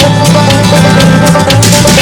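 Background music: loud instrumental with drums and guitar and a steady beat.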